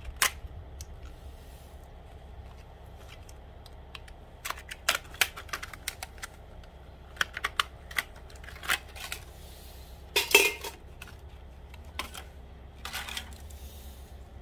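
Metal snips and hand tools working on a steel fluorescent light fixture: a string of irregular sharp clicks, snips and metallic taps as wires and boards are cut and pried loose. The loudest snap comes about ten seconds in.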